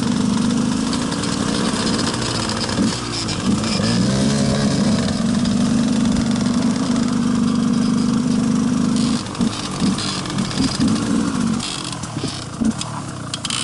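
Enduro motorcycle engine running steadily along a gravel trail, its pitch dipping and rising about three seconds in. From about nine seconds in the throttle comes on and off in short blips.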